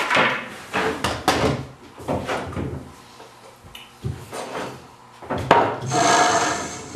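Wooden knocks and clatter as MDF and scrap-wood jig pieces and tools are handled and set down on a workbench, a separate knock every second or so, with a longer scraping sound about six seconds in.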